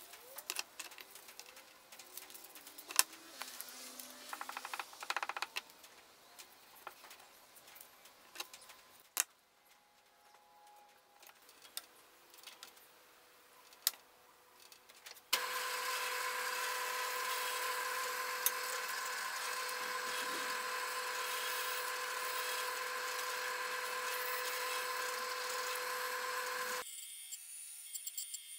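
Scissors snipping a paper template, with scattered clicks and knocks of handling. After a quiet spell a drill press starts and runs steadily with a hum for about ten seconds, then cuts off. A quieter band saw follows near the end.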